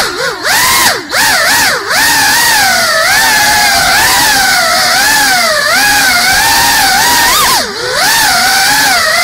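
Small FPV quadcopter's motors and propellers whining, the pitch rising and falling constantly with the throttle. The pitch drops sharply and swoops back up several times in the first two seconds and once more near the end, as the throttle is chopped and reapplied.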